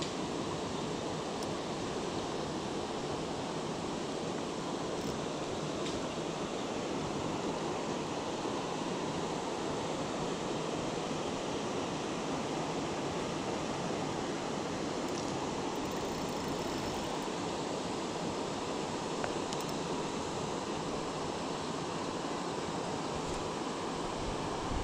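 Steady rushing of shallow stream water flowing around the wading angler.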